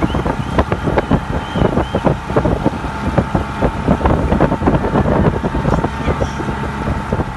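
Wind buffeting the microphone in irregular gusts, over a steady engine hum.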